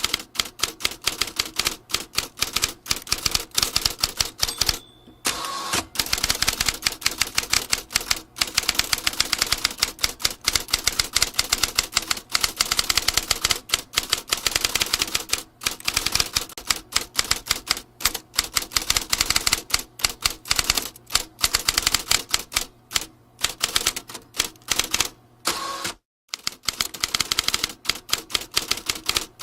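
Vintage typewriter being typed on: rapid, continuous key strikes, with brief pauses about five seconds in and near the end.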